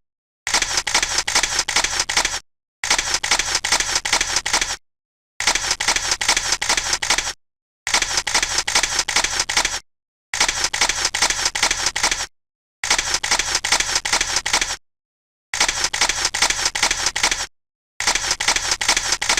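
Camera shutters clicking in rapid runs, the paparazzi photo sound effect. The runs last about two seconds each and are split by short silent gaps.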